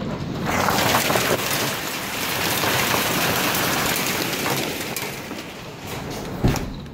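Heavy hail pelting down, a dense steady clatter of hailstones striking the ground and nearby surfaces, easing a little near the end. One sharp thump about six and a half seconds in.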